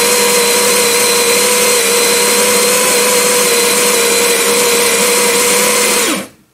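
Baratza Sette 30 conical burr grinder grinding espresso beans on a timed dose: a loud, steady motor whine that sags in pitch and stops about six seconds in as the timer runs out.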